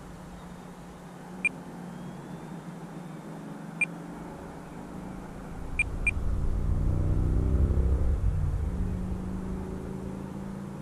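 Radio-control transmitter beeping briefly four times, the last two as a quick pair, over a steady low hum. A low rumble swells about halfway through and then fades.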